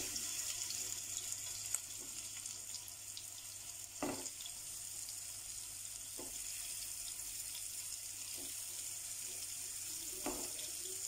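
Oil sizzling with a steady soft hiss in a nonstick frying pan as raw mince meatballs are set into it one at a time, each landing with a short soft thud.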